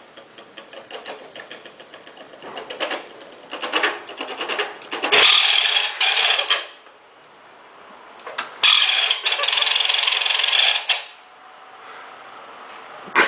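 Malfunctioning electric fan clattering: rapid rattling clicks build up over several seconds, then two loud harsh bursts of about two seconds each, and a single sharp click near the end.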